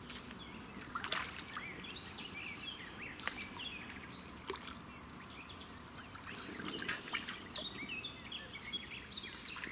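Small birds chirping and twittering in many short calls over a faint steady outdoor background, with a few sharp clicks about one, three and four and a half seconds in.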